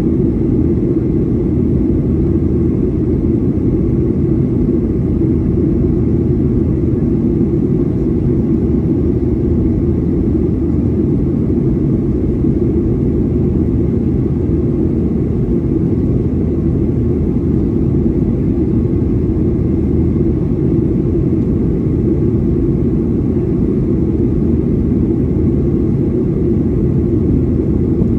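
Boeing 737-800 cabin noise heard from a window seat over the wing: a steady, mostly low-pitched mix of the CFM56-7B turbofans and rushing air as the jet climbs out after takeoff.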